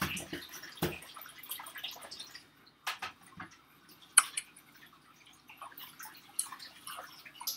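Faint scattered clicks and taps, about half a dozen at uneven intervals, over a low steady hum.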